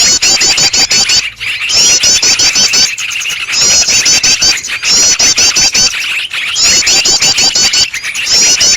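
Bird-lure recording of mixed small songbird calls: a fast, high-pitched trill of rapidly repeated rising notes comes in bursts about a second long with short gaps, over a continuous dense chatter of lower-pitched calls.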